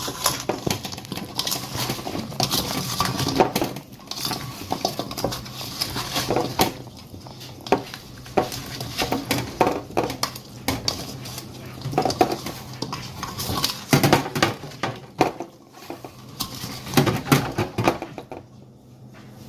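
A utensil clinking and scraping against a bowl in irregular strokes as cut potatoes are tossed with oil and dry seasonings.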